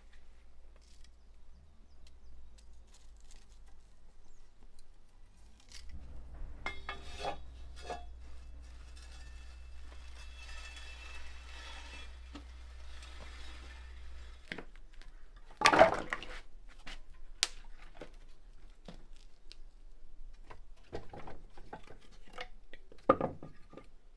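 Scattered knocks, clatters and clinks of firewood and a long-handled iron tool being worked in the mouth of a brick, wood-fired dome oven, with two louder sharp knocks, one just past the middle and one near the end.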